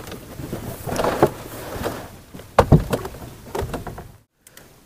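Irregular knocks and thumps of a freshly landed red fish flapping against the wooden deck boards of a small boat, the loudest about two and a half seconds in. The sound drops out briefly near the end.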